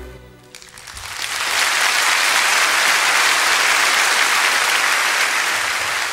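The last note of the song dies away, then about a second in audience applause swells and holds steady.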